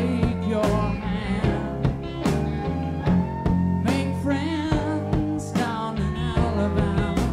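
Background song with guitar and a steady drum beat.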